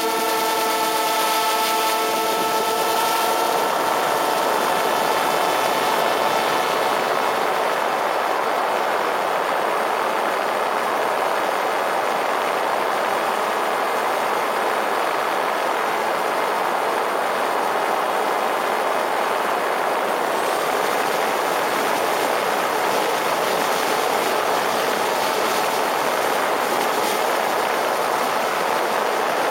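DJI Spark drone's motors and propellers buzzing steadily, close up, while it hovers carrying an extra 360 camera. For the first few seconds the whine holds a set of even tones, then turns into a denser, rougher buzz.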